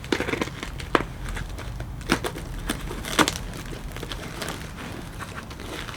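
Box packaging rustling and crinkling as a clutch kit is unpacked, with a few sharp knocks as the parts are handled.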